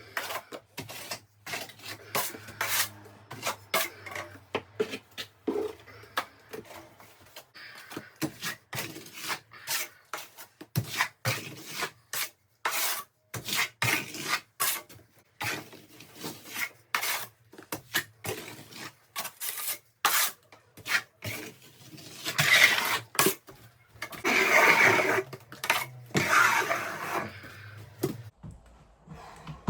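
Steel plastering trowel scraping and spreading hardwall plaster in many short, irregular strokes, with a few longer, louder scrapes near the end.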